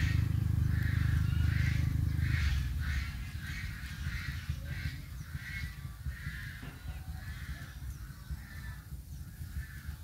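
An animal calling over and over in short, harsh calls, about two a second, growing sparser toward the end. A low rumble under the first couple of seconds drops away.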